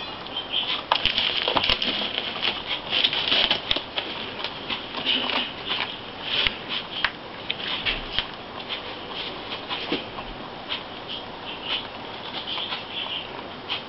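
Pet rabbits chewing and crunching dry food, rustling through scattered hay and dried herbs: a dense, irregular run of small crackly clicks.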